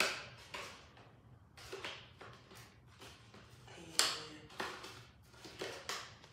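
Fingers opening a small cardboard Beyblade X retail box, prying and tearing at its end flap: a string of short scratchy rustles and tears, the sharpest about four seconds in.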